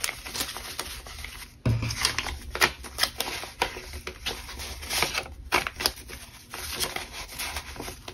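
Paper banknotes rustling in quick, crisp handfuls as a pile of dollar bills is gathered and shuffled together. A low thump comes a little under two seconds in.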